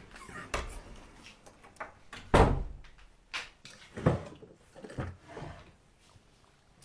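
A wooden bedroom door opening and shutting, followed by several lighter knocks and thumps. The loudest knock comes about two and a half seconds in.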